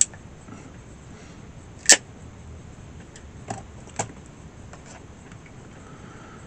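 Crimping tool squeezing a connector pin onto a stranded wire: a few sharp metallic clicks, the loudest just under two seconds in, then two smaller clicks close together, with faint ticks between.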